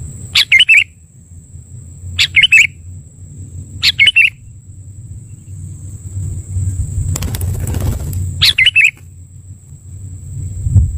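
Sooty-headed bulbul giving short calls, four in all, each about half a second long, with a rustle of wing flapping just before the last call, over a low background rumble.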